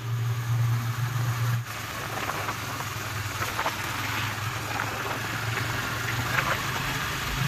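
Motorcycle engine running steadily while riding, a low even hum with a rushing haze over it; it eases slightly about two seconds in.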